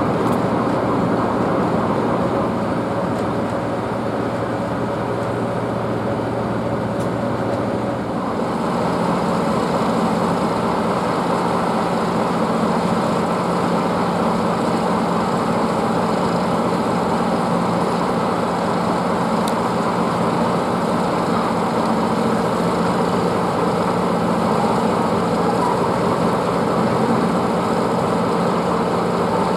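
Steady low mechanical drone of running machinery, its hum shifting to a slightly higher pitch about eight seconds in.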